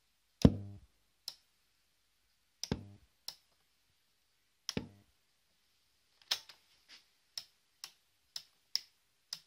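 Clicks and clunks from working the controls of a Grundig Satellit 6000 shortwave radio: three heavier clunks with a short boomy decay, each followed by a lighter click, then a quicker run of about eight sharp clicks, roughly two a second. No audio comes from the speaker, because the radio's audio stage is faulty.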